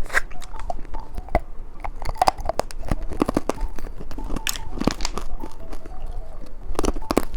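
Close-miked crunching and chewing of small mushroom candies: irregular sharp crunches.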